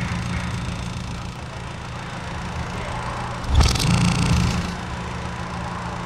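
Small electric motor running with a steady low hum. About three and a half seconds in comes a sudden loud knock, followed by about a second of hissing noise.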